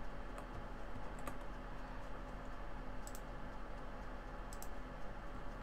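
A few faint, scattered clicks from a computer keyboard and mouse over a steady low hum.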